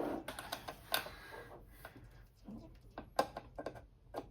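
Scattered light clicks and taps of small screws and metal parts being handled on a workbench, with a quick cluster of clicks near the end.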